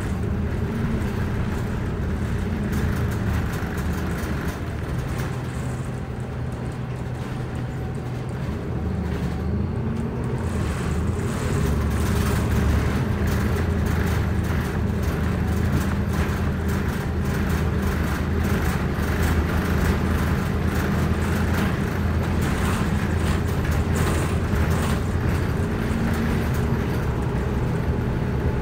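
Orion VII EPA10 diesel transit bus driving, heard from inside the passenger cabin: a steady engine hum with road noise, its pitch rising and falling several times as the bus speeds up and slows.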